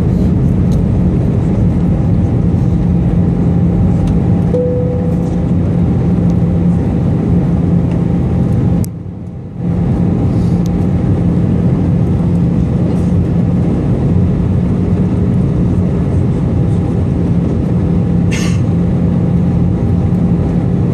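Cabin noise inside an Airbus A319 airliner on its descent, heard from a window seat beside the engine: a steady, loud jet-engine and airflow rumble with a low hum. The sound drops out briefly about nine seconds in.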